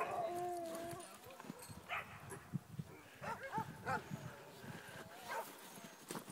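Sled dogs calling faintly across the yard: one long held call in the first second, then scattered short, rising-and-falling calls.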